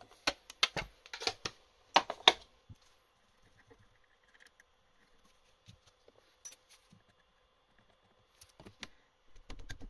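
Light clicks and clatter of a 4.2 mm drill bit being taken from a plastic tap-and-drill case and fitted into a lathe's tailstock drill chuck, busiest in the first three seconds, with one sharper click about six and a half seconds in and a few more small clicks near the end.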